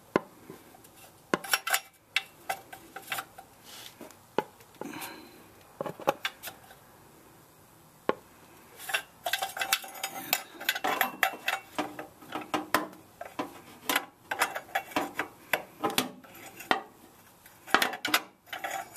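Wrench clinking and clicking against a newly fitted oxygen sensor and the surrounding exhaust hardware as the sensor is snugged down. The metallic taps and scrapes are irregular: scattered at first, then coming thick and fast in the second half.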